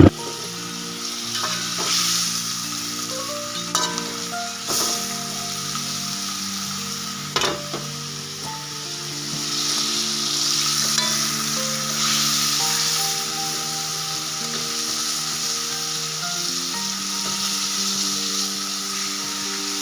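Food sizzling in a frying pan, a steady hiss with a few sharp clicks and pops, under background music of long held notes.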